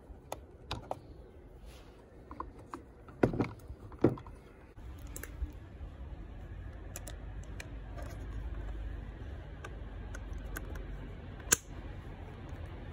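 Scattered plastic clicks and knocks from handling a Bushnell trail camera: its buttons pressed, the case and its strap worked, with one sharp click about eleven and a half seconds in. A steady background rush comes in about five seconds in.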